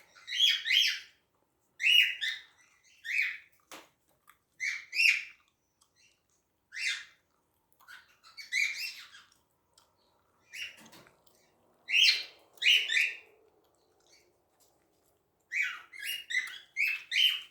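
Cockatiels chirping: short repeated calls with pauses between them, and a quicker run of chirps near the end.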